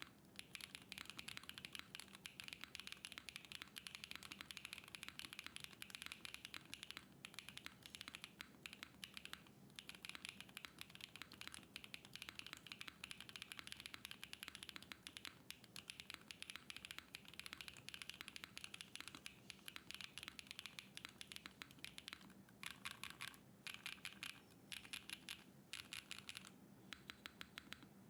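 Mechanical keyboard typed on at a fast, steady pace: a dense run of keystroke clacks with short pauses, slowing to separate single strokes a little over three quarters of the way through. The board has stock switches in an aluminium plate with no foam, under MW Alfheim keycaps.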